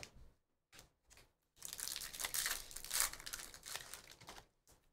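A few light clicks, then about three seconds of crinkling and tearing as a 2022-23 Upper Deck hockey card pack's wrapper is ripped open.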